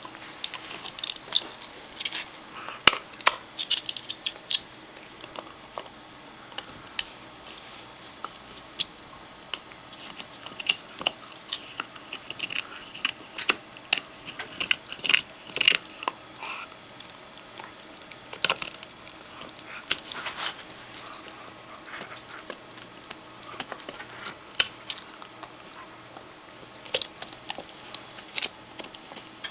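Shetland sheepdog puppy gnawing on a large rawhide chew: irregular clicks and crunches of teeth on the hide, coming in bunches with short pauses between them.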